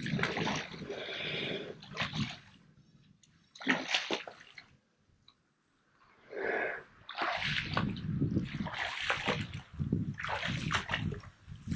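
Canoe paddle strokes splashing and sloshing through shallow water, a stroke about every second and a half, with a brief quiet pause partway through.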